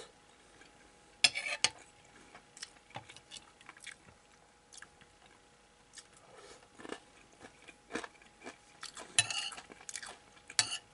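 Someone chewing a mouthful of ground-beef hamburg steak, with many small clicks, and a metal spoon scraping against the plate near the end.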